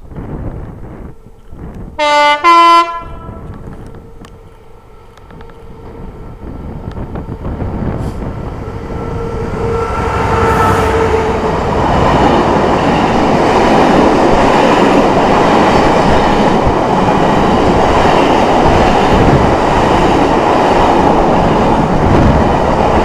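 Class 66 diesel freight locomotive sounds its two-tone horn about two seconds in, a short low note followed by a higher one. It then approaches and passes beneath, its EMD two-stroke diesel engine growing louder. From about twelve seconds the coal hopper wagons rumble and clatter past steadily.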